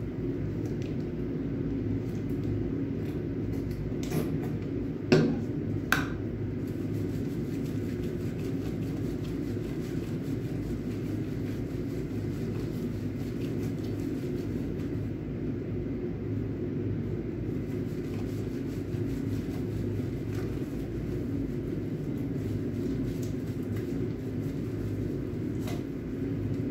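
Steady low hum of a small tiled room, with two sharp knocks about five and six seconds in.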